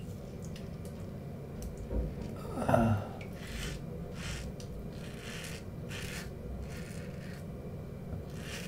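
Straight razor scraping stubble from a lathered cheek in a cross-grain pass: about seven short scraping strokes, one every second or less, from about three seconds in. A dull thump and a brief louder sound come just before the strokes begin.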